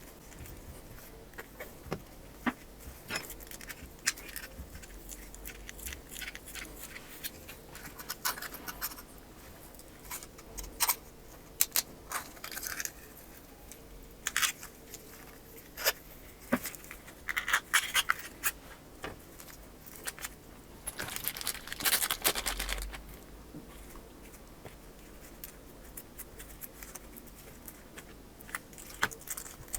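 Scattered small clicks, taps and scrapes of repair tools working a smartphone's battery cage off its battery, which is stuck firmly with adhesive. A longer patch of scraping comes about two-thirds of the way through.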